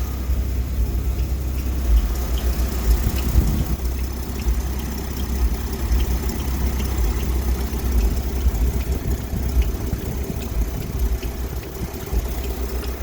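Mini truck engine idling steadily after a new water pump, fan clutch and pulley were fitted, with a faint squeal from the belt drive that the owner suspects comes from the power steering pump pulley.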